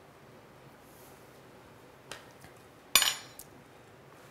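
Quiet room tone with a faint click about two seconds in, then one sharp metallic clink about three seconds in that rings briefly: a metal jar lid being handled on the cutting board.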